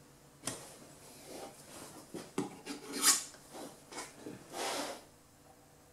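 Metal putty knife scraping and tapping in a run of short strokes, working glazing putty into the corner of a timber window frame. The loudest scrape comes about three seconds in and a longer one near the end.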